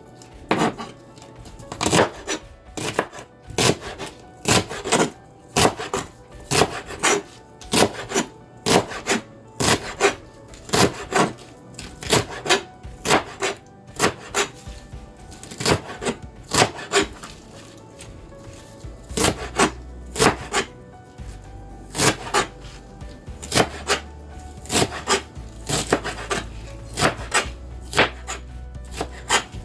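Kitchen knife chopping purslane on a cutting board: a long run of sharp, separate strokes, roughly one to two a second.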